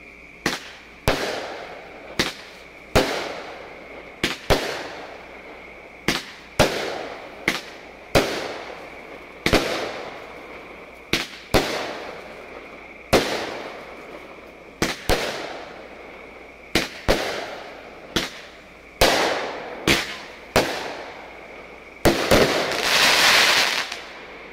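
A 200-gram consumer firework cake with willow and strobe effects firing shot after shot: sharp bangs roughly every half second to second and a half, each followed by a fading hiss and crackle. A dense, continuous crackling stretch of about two seconds comes near the end.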